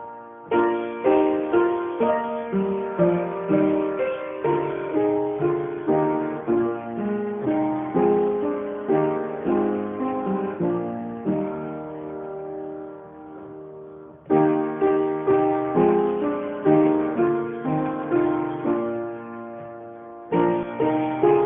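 Solo piano music closing the service, a melody of struck notes that ring and die away. Phrases fade out and fresh ones begin about 14 and 20 seconds in.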